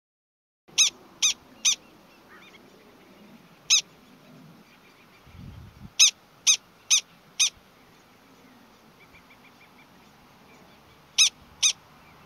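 Gunnison's prairie dog giving its alarm call: short, sharp, high-pitched barks in quick runs, three, then one, then four, then two near the end.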